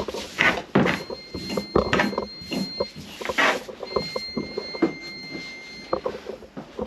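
Picture frame knocking and scraping against a wall as it is fitted onto hanging pins: an irregular run of knocks and rubs. A faint, steady high-pitched tone stops and starts behind it.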